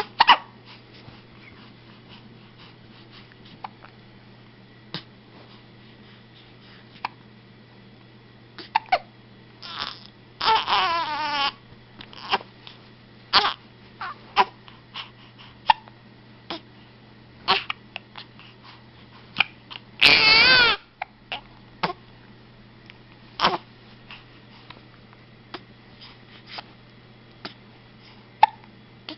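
Repeated short hiccups, irregular and about one every second or two. Two longer wavering vocal sounds come between them, one about ten seconds in and a louder one about twenty seconds in.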